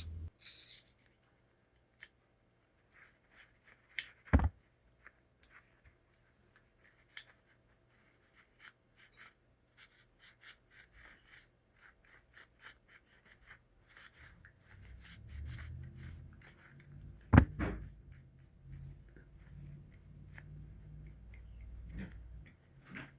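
Faint scattered clicks and taps of a disassembled switchblade's small metal parts being handled, with two sharper knocks. In the second half, a cloth rubs softly as the inside of the knife is wiped clean of sand and residue.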